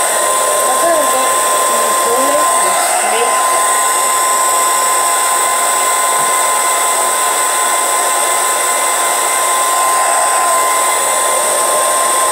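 Hand-held hair dryer running steadily: a constant rush of air with an even, high motor whine, blowing hair straight over a brush.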